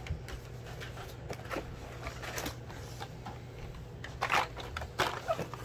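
Blister-packed Hot Wheels cars on their cardboard backing cards being handled and slid out of a cardboard shipping case: light plastic and card rustling with scattered clicks, busier and louder toward the end.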